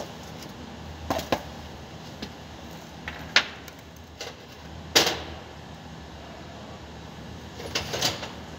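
Irregular knocks and clicks, about eight of them, the loudest about five seconds in, over a steady low hum.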